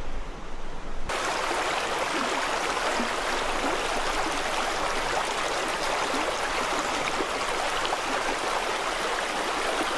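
Shallow mountain stream flowing over stones and pebbles, a steady rush of water that starts suddenly about a second in.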